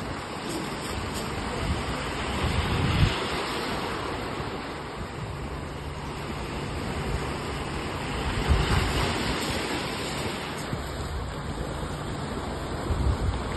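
Small sea waves breaking and washing up the sand, swelling about every five seconds, with wind rumbling on the microphone.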